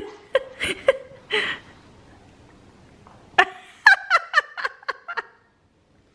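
A short burst of rapid laughter, about eight quick pitched 'ha' pulses falling in pitch, a few seconds in, after a few brief sharp sounds near the start.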